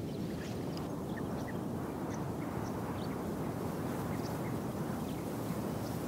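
Steady wind rumbling on the microphone, with scattered faint high chirps over it.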